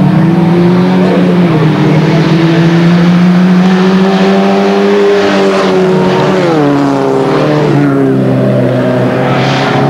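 Several rallycross cars racing past at full throttle, engines revving hard and climbing slowly in pitch, then dropping sharply twice in the second half as the cars go by.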